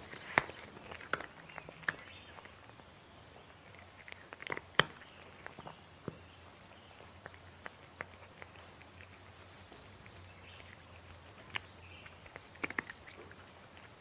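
A steady high insect trill, with sharp crunches of a cat chewing dry kibble, most of them in the first five seconds and a few more near the end.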